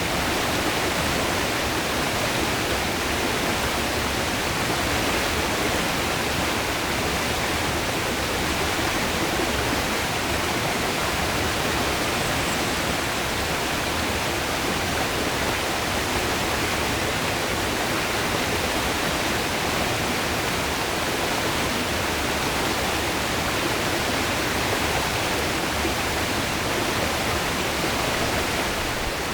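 River water flowing steadily over rocks, a dense, even rush of water that holds unchanged throughout.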